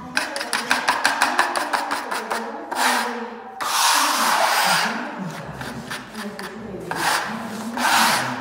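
Steel trowel chopping and scraping a gritty sand-and-cement patching mortar against a wooden floor: a quick run of rapid strokes, several a second, then longer drawn-out scrapes.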